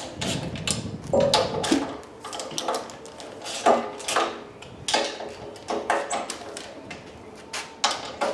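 Irregular clanks and knocks of metal tools and parts being handled, some with a brief ringing.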